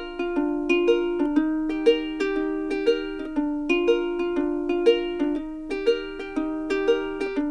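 Background music: a light plucked-string tune with a steady beat.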